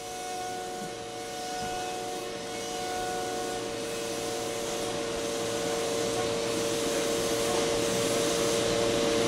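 Holz-Her ProMaster 5-axis CNC router running while machining door joints. It gives a steady whine of several held tones over a constant rush of noise, growing slowly louder.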